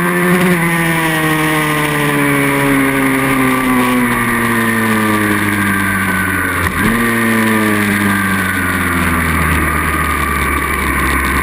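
Pit bike engine heard from an onboard camera, its revs falling slowly, then jumping up sharply once about seven seconds in before falling again.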